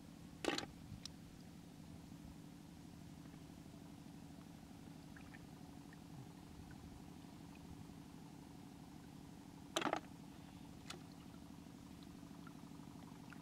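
Snails dropped by hand into a plastic bucket: two short, sharp clatters about nine seconds apart, each followed by a smaller click, over a steady low hum.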